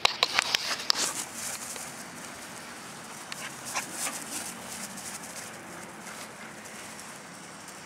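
A dog's feet scuffing and thudding on grass as it bolts off at a sprint, a quick run of sharp sounds in the first second, then a faint outdoor background with a few scattered clicks.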